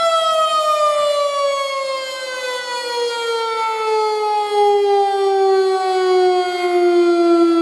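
Federal Signal STH-10A mechanical warning siren's steady alert tone starting to wind down: the pitch falls in one smooth, continuous glide while the sound stays loud, swelling and fading a little.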